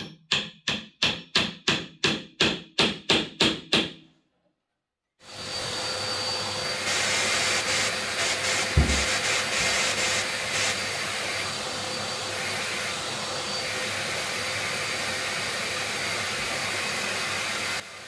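About a dozen quick hammer strikes, roughly three a second, each ringing briefly. After a short pause, a drill bores into the wall while a vacuum dust extractor draws through a suction shroud at the bit, a loud steady noise with one thump partway through, stopping sharply near the end.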